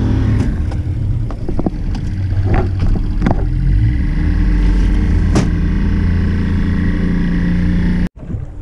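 Outboard motor on a jon boat running under way, its pitch stepping up about halfway through as it speeds up, with a few sharp knocks. The sound cuts off abruptly near the end.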